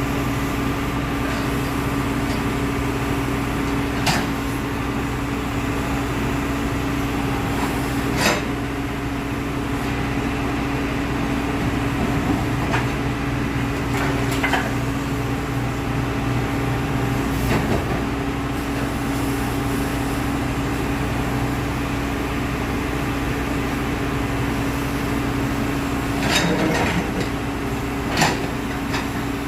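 Backhoe's diesel engine running steadily, with a sharp metallic knock now and then, several times.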